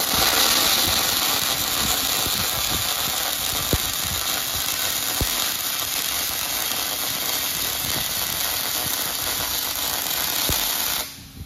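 Robotic MIG welding arc running a bead on a steel frame: a steady loud sizzle with a few sharp pops. The arc strikes right at the start and cuts off abruptly about a second before the end.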